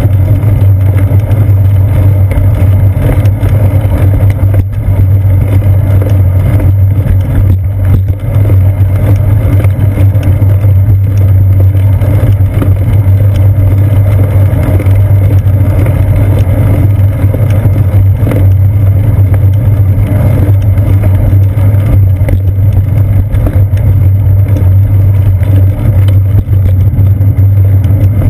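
Steady, loud low rumble of wind buffeting and road vibration picked up by a seat-post-mounted GoPro Hero 2 on a moving bicycle.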